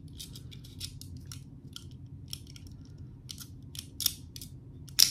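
Small metal clicks of a switchblade-style comb being fiddled with at its button and catch, irregular and faint, then one loud sharp snap near the end as the spring-loaded comb flicks open.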